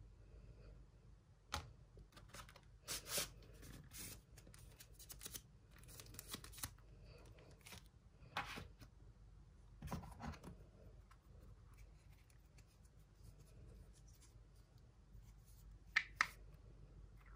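Paper and cardboard packaging being handled, with scattered short rustles and crackles. Near the end come two sharp clicks close together as the plastic mini tripod is handled.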